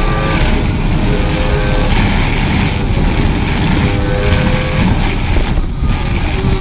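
Triumph Daytona sport bike's engine heard onboard at track speed, under heavy wind rush, its note shifting in pitch, with a short break in the engine note near the end.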